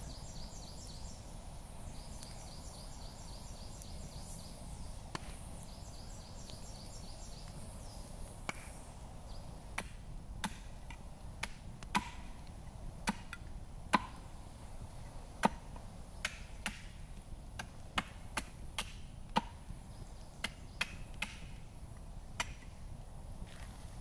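Axe splitting firewood on a wooden chopping block: a run of about twenty sharp chops, unevenly spaced, starting about eight seconds in and loudest around the middle.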